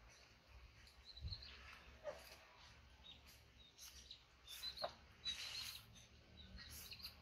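Faint, sparse sounds: short high chirps, like small birds, with a few soft scrapes and clicks from a knife peeling a green mango.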